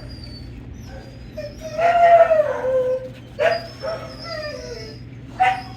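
A dog whining in drawn-out, high-pitched calls: a long one about two seconds in that falls slightly in pitch, a second long one after it, and a short one near the end.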